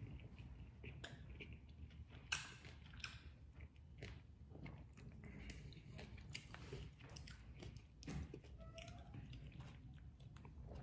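A person chewing a mouthful of a McDonald's Chicken Big Mac, with faint, irregular bites and crunches close to the microphone.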